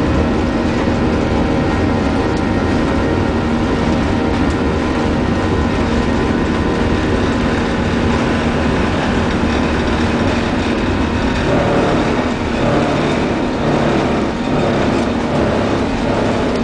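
Boeing 737-800's CFM56 engines at takeoff power, heard from the cabin as a loud, steady roar with whining tones. About eleven seconds in, a rhythmic grinding joins it and keeps repeating.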